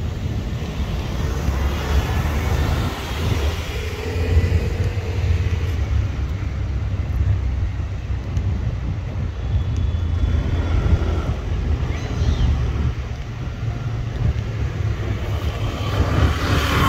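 Outdoor street ambience: a steady low rumble of road traffic, with a vehicle passing and getting louder near the end.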